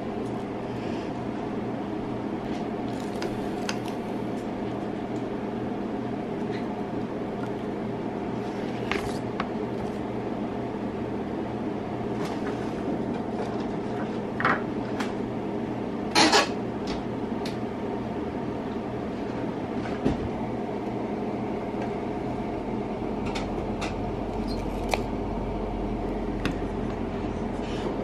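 A steady hum of several even tones, with a few light clicks and knocks of small parts being handled on a tabletop, the loudest a double knock about 16 seconds in.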